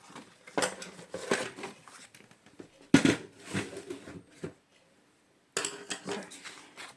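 Cardstock being scored and handled: irregular scraping and rustling of paper with a sharp click about three seconds in.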